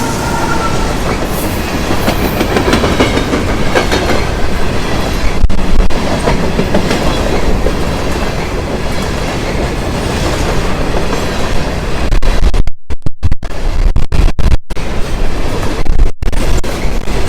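Empty grain hopper cars of a freight train rolling past with a steady rumble and wheels clicking over the rail joints. From about two-thirds of the way in, the sound repeatedly cuts out for split seconds.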